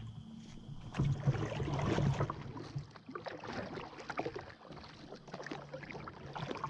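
Aqua Bound double-bladed kayak paddle dipping and pulling through calm water, with splashes and drips off the blades as the strokes alternate side to side.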